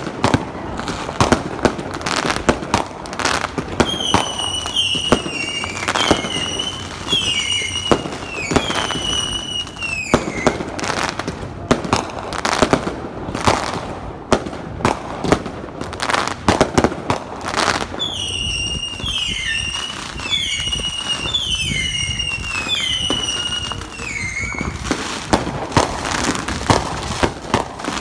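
Fireworks and firecrackers going off around the neighbourhood: a constant crackle with frequent sharp bangs. Twice, for about six seconds each, a high tone sweeps downward over and over, roughly once a second, above the bangs.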